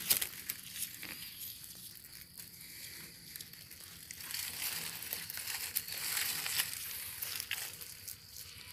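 Dry leaf litter crunching and rustling underfoot in irregular crackles, loudest at the start and again in a busier stretch from about four and a half to seven and a half seconds in.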